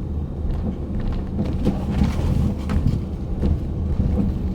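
Ford Edge's front suspension knocking several times over rough pavement, over the low rumble of the car rolling along. The knock comes from a worn front sway bar link.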